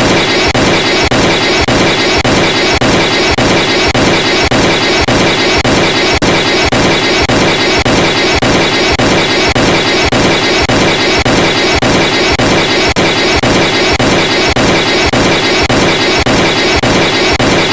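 Emergency alert alarm sounding continuously: a harsh, loud, noisy tone that pulses about three times a second without a break.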